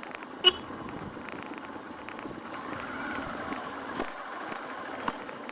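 Motorcycle running at low speed over a rough dirt and brick path, a steady engine and riding noise. There is one sharp knock about half a second in and lighter knocks later.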